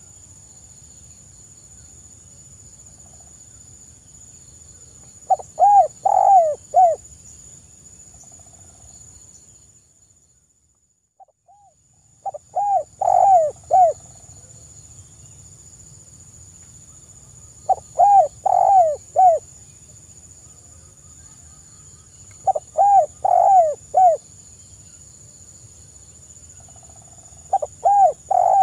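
Spotted dove (tekukur) cooing: five phrases of three to five rising-and-falling coos each, about every five seconds, over a steady high hiss.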